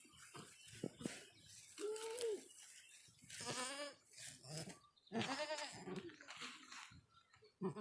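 Goat bleating: a shorter call about two seconds in, then two long, quavering bleats.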